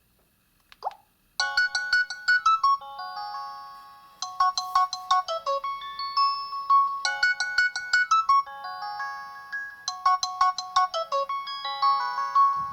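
Nokia 215 4G mobile phone playing a ringtone through its loudspeaker: a short blip, then a quick electronic melody whose phrase repeats four times, about every three seconds.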